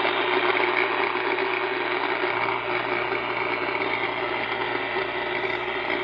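Power line noise coming through an ICOM transceiver's speaker in AM mode on the 10-meter band: a steady, harsh buzz of static with a constant hum in it. The operator blames a power-line transformer.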